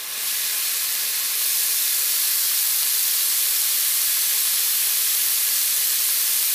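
Tofu in black pepper sauce sizzling in a wok: a loud, steady hiss that builds a little over the first second and a half, then cuts off abruptly near the end.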